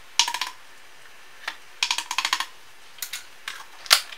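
Several short bursts of quick, light clicks and taps: a spoon knocking a scoop of margarine off into a plastic Magic Bullet blender cup, then the margarine tub being handled, with one sharper click near the end.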